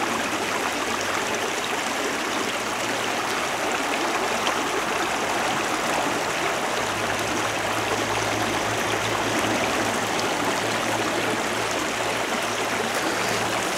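Creek water running over rocks between rock pools: a steady rushing.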